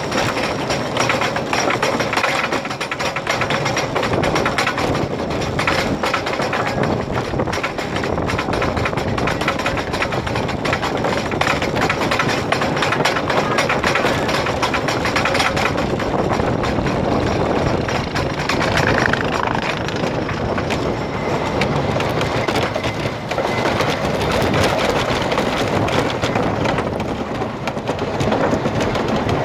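Wooden roller coaster train being hauled up its chain lift hill: a steady, rapid clatter of the lift chain and anti-rollback ratchet, with the cars rattling on the wooden track.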